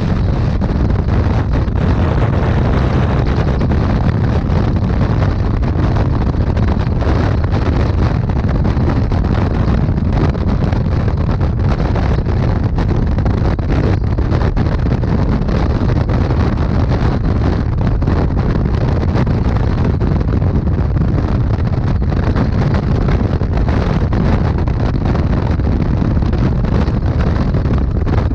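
Motorcycle at highway speed: wind rushing and buffeting over the microphone, steady and loud, with the deep rumble of engine and road noise underneath.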